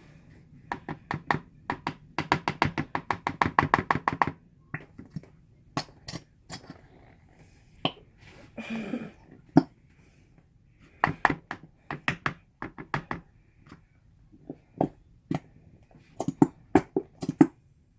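A plastic glue bottle being knocked and tapped against a cup to shake out the last of the glue. It starts with a fast run of light knocks, then goes on as scattered single knocks and short bursts.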